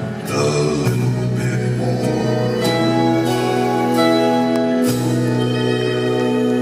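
Music of a slow song: long, steady held notes that break off briefly about five seconds in and start again.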